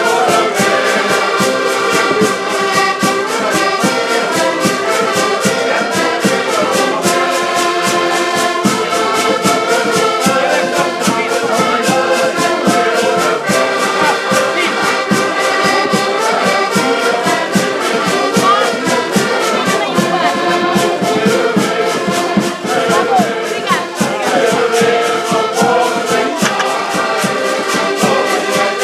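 A group of about nine diatonic button accordions playing a lively tune together. Their sustained reed chords are pushed along by a quick, steady rhythmic pulse.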